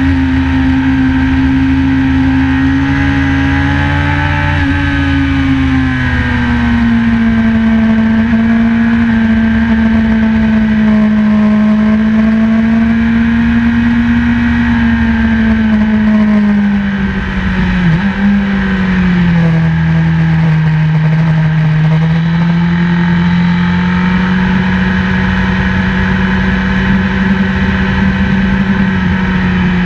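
BMW S1000RR inline-four engine heard from on the bike, running at fairly steady revs with the pitch drifting gently up and down. There is one brief drop and recovery in revs a little over halfway through.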